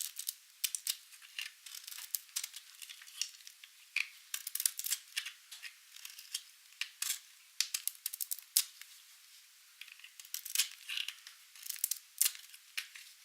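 Dry, painted soap being cut: an irregular run of crisp, high crackles and snaps, with several sharper clicks among them.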